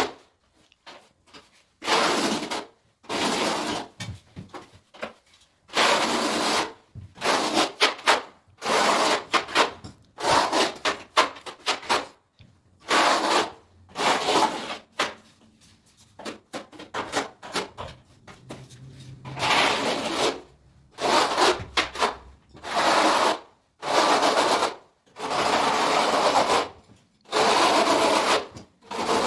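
Steel notched trowel scraping across wet tile adhesive on a wall in repeated strokes, about one a second with short pauses, combing the adhesive into ridges.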